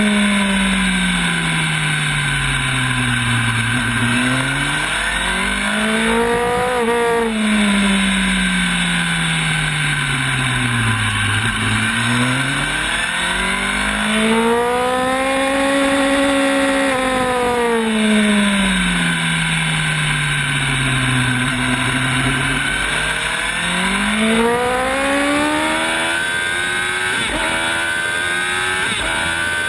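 Sport motorcycle's engine heard from onboard while lapping a circuit: the revs fall off into corners and climb again on the throttle several times, with a short stretch held high in the middle and quick gear changes near the end, under steady wind rush.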